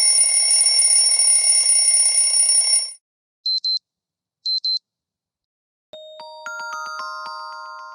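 Built-in phone alert tones of a Xiaomi 9 SE played one after another: a harsh buzzing alarm for about three seconds that cuts off, then two quick double beeps, then a melodic mallet-like chime tune starting about six seconds in.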